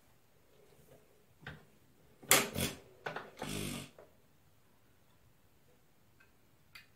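Nelson Brothers hit-and-miss engine being turned over by hand at the flywheel without firing, as fuel is drawn up to the mixer: a few sharp metallic clacks about two seconds in, then a short rushing noise, and a light click near the end.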